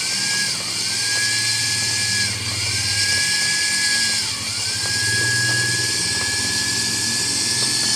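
Cotton candy machine's electric motor spinning its spindle on a heat-resistant bearing: a steady high whine over a hiss, its pitch sagging briefly three times. It is still a little noisy because the machine is new and not yet run in.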